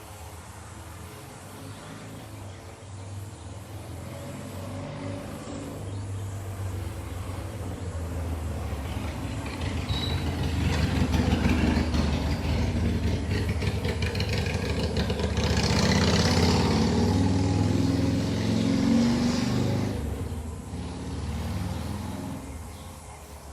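A 2020 Harley-Davidson Iron 883's air-cooled 883 cc V-twin with aftermarket Radium exhaust, a deep engine sound that grows steadily louder as the motorcycle approaches. It is loudest through the middle, dips, then fades away near the end as the bike rides off.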